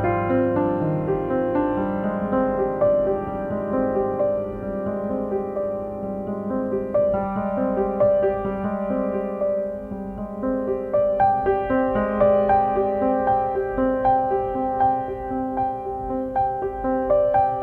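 Solo piano music, a slow piece of sustained chords and melody notes.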